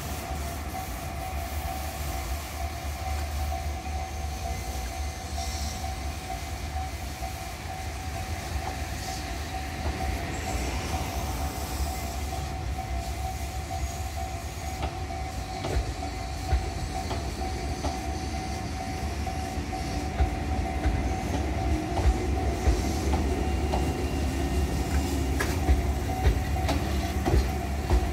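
Tobu 800-series electric train passing through a depot's automatic train-washing machine: rushing water spray and a steady hum. From about halfway on, its wheels click over rail joints, more often near the end.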